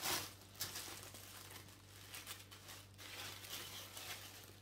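Tissue paper rustling and crinkling as it is pulled off a paperback book, loudest in the first half second and then fainter, over a faint steady hum.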